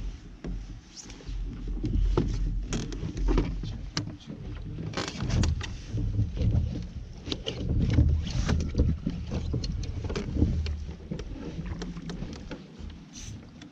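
Low rumble of water and wind against a plastic fishing kayak's hull, with frequent sharp knocks and rattles as fishing gear and a landing net are handled on board while a hooked fish is played.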